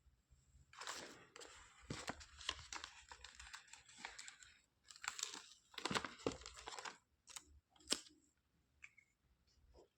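Packaging crinkling and tearing in two long stretches, then a few sharp clicks near the end.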